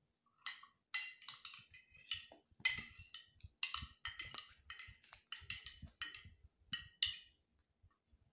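A spoon clinking and ringing against the side of a coffee cup as a child stirs, about fifteen light strikes at roughly two a second that stop about a second before the end.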